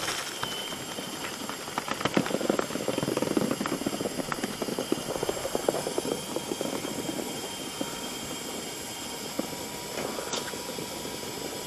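Dryer vent cleaning equipment running steadily, with a faint high whine over it and a dense, rapid rattling and clattering that is busiest in the first half and thins out later.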